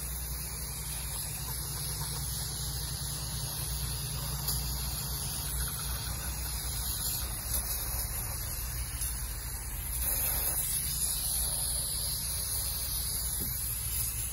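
Aerosol carburetor cleaner spraying in a long continuous hiss onto a chainsaw's clutch area, briefly louder about ten seconds in, with a low steady hum underneath.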